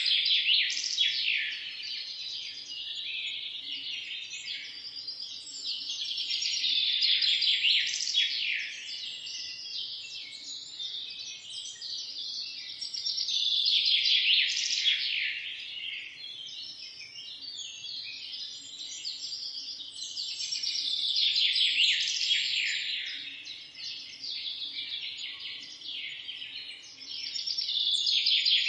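A flock of small birds chirping and chattering together in a dense, continuous chorus of rapid high notes that swells louder and fades back in waves about every seven seconds.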